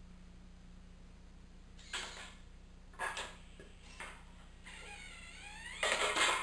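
The electric motors of a homemade sorting robot's arm whirring as it picks up an aluminum can: short bursts about a second apart, then a whine that glides down and back up in pitch, with the loudest burst near the end as the arm swings up.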